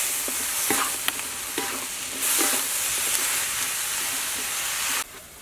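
Shredded lotus root and egg sizzling in a hot wok while a spatula stirs and scrapes against the pan, with short metallic clinks. The sizzle cuts off suddenly near the end.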